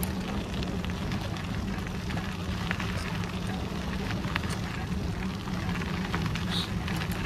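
Bicycle rolling along a forest track: a steady rumble of the tyres on the path, with scattered small crackles and ticks.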